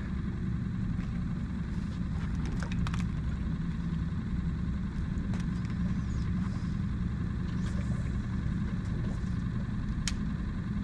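A motor idling steadily: a low, even hum, with a few light clicks about two to three seconds in.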